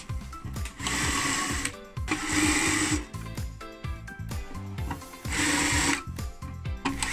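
Electric drill running in several short bursts of about a second each, an oversized bit spinning in the drilled holes of a steel plate to chamfer off the burrs. Background music plays between the bursts.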